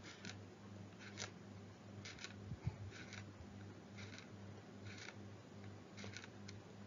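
Faint scratchy strokes of a stylus drawing on a tablet, about one a second, over a low steady hum.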